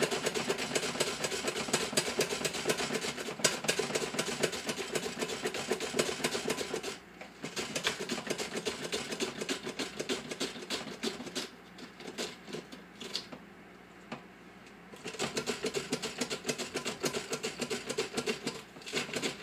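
Celery stalks slid rapidly back and forth across a mandoline slicer, giving a fast, rhythmic clatter of slices being cut. The strokes thin out and soften for several seconds in the middle, then pick up again at full pace near the end.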